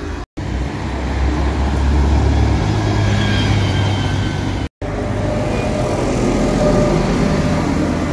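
City buses passing close by, engines running with a strong low rumble that swells as the first bus goes past. The sound drops out briefly twice at edits, the second time before an Iveco Urbanway bus approaches.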